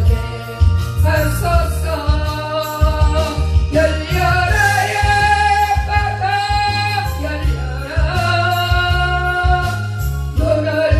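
Gospel song sung solo over instrumental accompaniment: a voice holding long notes with vibrato above a steady, repeating bass line.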